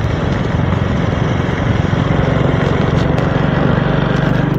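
Vehicle engine running steadily, recorded from on board while travelling along an unpaved dirt road.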